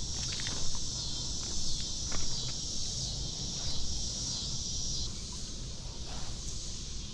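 Insects buzzing in a steady, high-pitched chorus that drops off a little about five seconds in, with scattered clicks and knocks.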